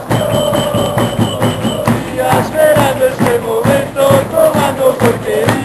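Football supporters' crowd singing a terrace chant together to a steady beat of bass drums.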